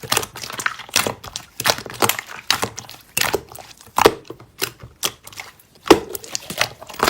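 Slime being squeezed and pressed by hand, giving irregular crackling, popping clicks several times a second.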